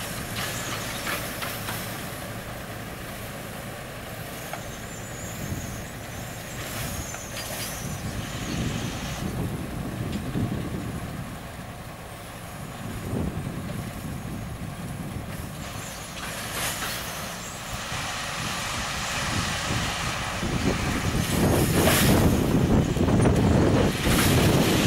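Diesel engines of a pair of coupled sugar-cane locomotives running, with a steady low rumble that grows louder over the last few seconds.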